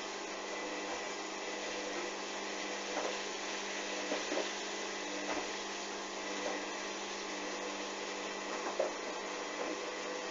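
Hoover washing machine running a duvet wash with the spin turned off: a steady hum with a few irregular soft knocks.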